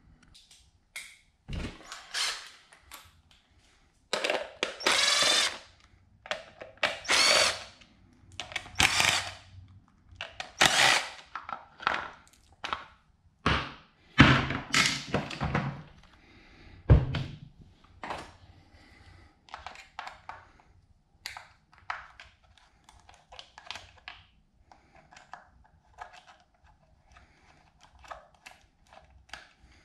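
A power drill running in short bursts of about a second each, several times over, backing out fasteners on an outboard motor, followed by a single thunk and then lighter clicks and clinks of tools on metal parts.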